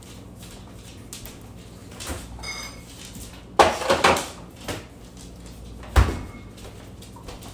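Kitchen handling noises: a short squeak about two and a half seconds in, a burst of clattering around four seconds, and a single sharp knock about six seconds in, like a cupboard or container being shut.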